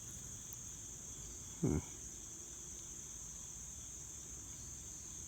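Steady, high-pitched insect chorus, typical of crickets. About a third of the way through, a man gives a brief low vocal sound.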